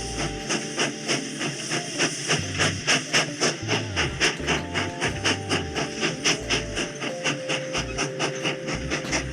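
Background music with a steady beat of about three to four hissy strokes a second, a stepping bass line and held melody notes.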